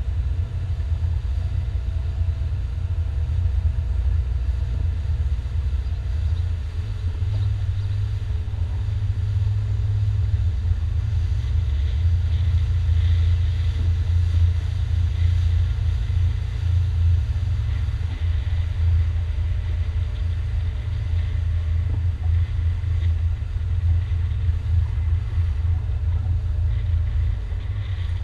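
Steady low rumble of a motorboat under way, with a faint steady whine above it.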